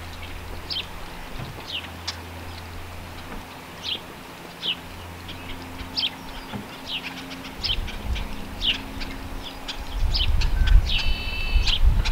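Small birds chirping outdoors, a short falling chirp repeated roughly once a second, over a steady low hum. Near the end a low rumble swells up and becomes the loudest sound.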